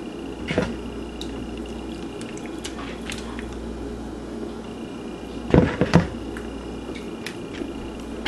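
Hands laying pepper and tomato slices onto marinated fish in a foil-lined baking pan: soft wet squishes and light clicks, with a cluster of louder knocks about five and a half seconds in, over a steady low hum.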